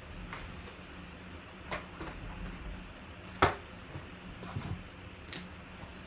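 A few scattered knocks and clicks of objects being picked up and set down, the sharpest about three and a half seconds in, over a steady low hum.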